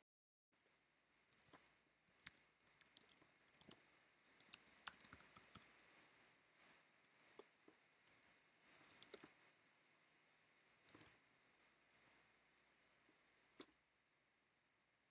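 Faint computer keyboard typing: irregular key clicks in quick runs with short pauses between them.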